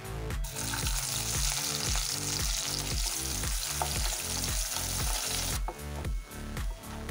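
Sliced onions dropped into hot oil sizzle and are stirred with a wooden spatula. The sizzle starts right at the beginning and dies down after about five and a half seconds. Background music with a steady beat runs underneath.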